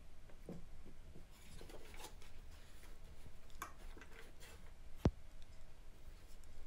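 Hands handling a plastic Holga 120WPC pinhole camera: faint rustling with small plastic clicks and taps, and one sharper click about five seconds in.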